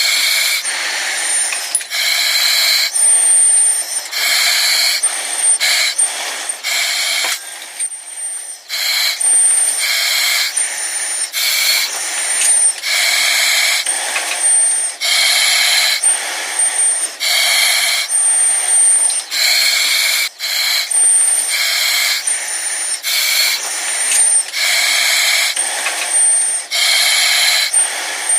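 Steady, rhythmic breathing through an oxygen mask: airy hissing inhales and exhales through the mask, each about a second long, with a brief high tone at many of the breath changes.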